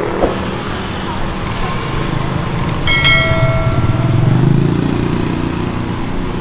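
Steady drone of street traffic, with a couple of clicks and then a single bell-like ding about three seconds in that rings for about a second.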